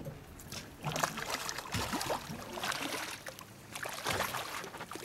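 A hooked striped bass thrashing at the water's surface, a run of irregular splashes starting about a second in and easing off near the end.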